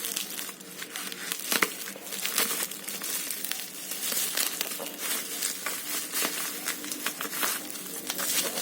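Plastic packaging crinkling and rustling as a parcel is pulled open by hand: a dense, continuous run of small crackles.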